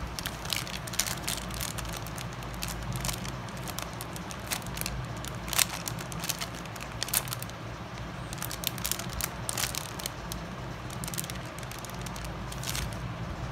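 A clear plastic bag crinkling and crackling as hands handle the paper blending stumps inside it, with scattered sharp clicks and taps, one louder snap about five and a half seconds in. A steady low hum runs underneath.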